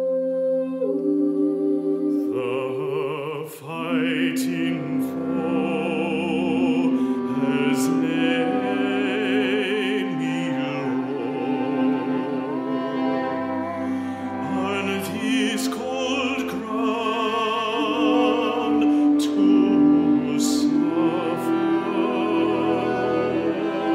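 Classical vocal music: singing voices with vibrato over sustained viola and cello. The strings hold chords alone for about the first two seconds before the voices come in.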